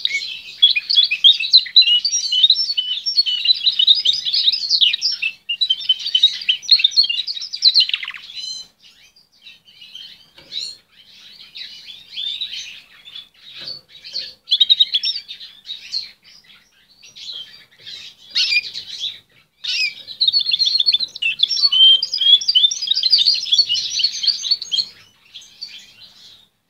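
Male canary singing: long runs of fast trills and warbles. About eight seconds in the song breaks into scattered short phrases and chirps, and from about twenty seconds in it goes back to a long, full run of song.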